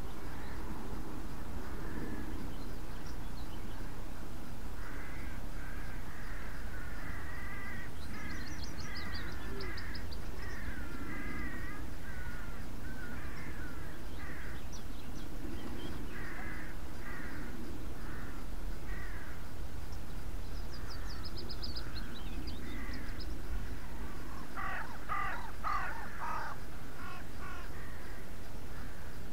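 Wild birds calling: high, falling trills now and then and warbling phrases, with a crow cawing in a run of harsh calls about three-quarters of the way through, over a steady low rumble.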